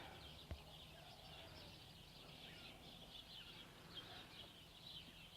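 Near silence with faint background birdsong, and one soft click about half a second in.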